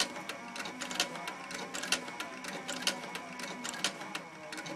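Cowboy CB3200 industrial sewing machine stitching through a Kydex insert: a quick run of needle-stroke clicks over a faint steady motor whine.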